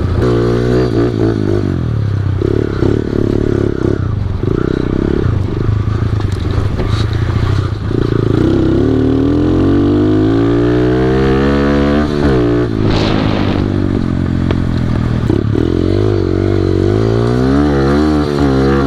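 Pit bike engine running while being ridden, its revs rising and falling with the throttle: a long climb in pitch about halfway through, a sudden drop, then climbing again near the end.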